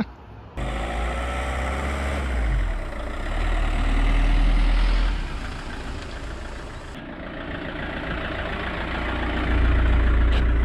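A camper van's engine running as the van drives up and comes alongside, a low rumble that swells about four seconds in and again near the end.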